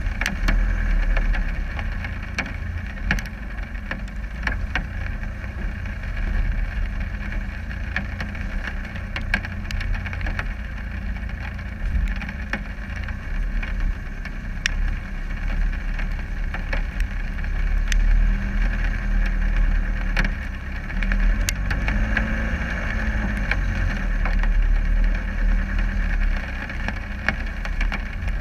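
Land Rover Discovery 300Tdi's 2.5-litre four-cylinder turbodiesel running steadily as the vehicle drives along a muddy off-road track, a low rumble with many short sharp clicks and knocks scattered through it.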